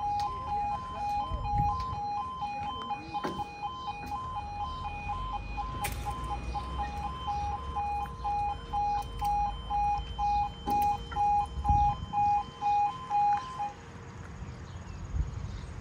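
Railway level crossing warning alarm, the British two-tone "yodel", sounding while the barriers lower. It switches back and forth between a lower and a higher tone about twice a second, and cuts off near the end once the barriers are down.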